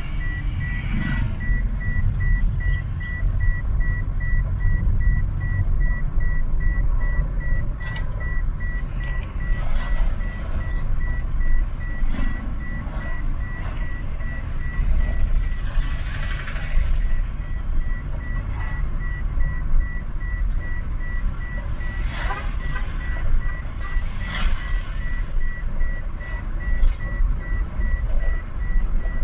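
Low road and engine rumble inside a moving car, with a high electronic beep repeating at an even pace throughout, and a few short sharp knocks here and there.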